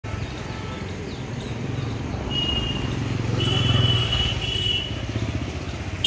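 Road traffic: a motor vehicle's engine rumbles past, swelling to its loudest about four seconds in and then easing. Two stretches of high steady tone sound over it in the middle.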